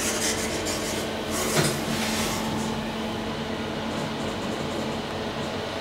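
Doors of a 2012 SMW traction elevator sliding shut, meeting with a knock about one and a half seconds in. After that there is a steady hum with a low tone inside the closed car.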